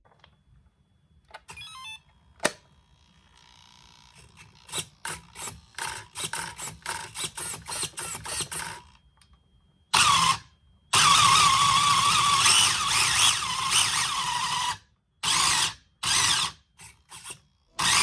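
Small electric motor running in short bursts, then longer loud runs with a wavering whine, stopping and starting again several times near the end.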